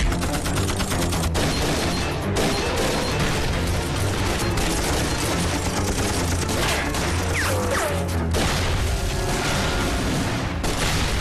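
Film battle sound effects: rapid machine-gun fire and explosions over a background music score.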